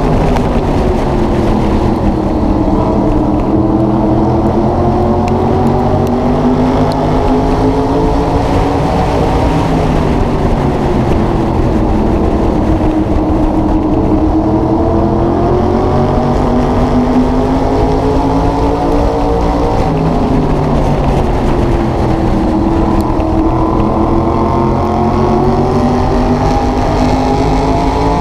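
Onboard sound of an SK Modified's V8 engine at racing speed. Its pitch drops three times as the driver lifts into the turns, then climbs again as the car accelerates down each straight.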